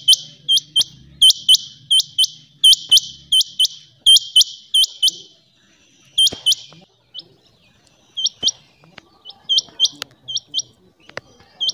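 Rain quail calling: sharp, high whistled notes in quick pairs, about one pair a second. The pairs come loud and close together for the first five seconds, then one more pair after a short break, then softer, scattered pairs near the end.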